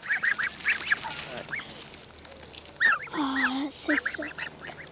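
Greylag goose family calling at close range: clusters of short, high peeping calls in quick runs, with a lower, drawn-out sound about three seconds in.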